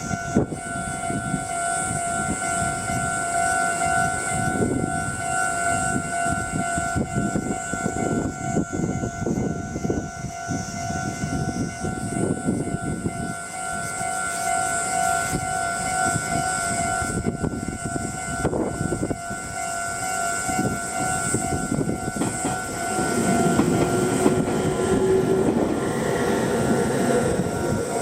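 Japanese level-crossing warning bell ringing steadily over the low rumble and clatter of a passing Meitetsu train; the train rumble grows louder near the end.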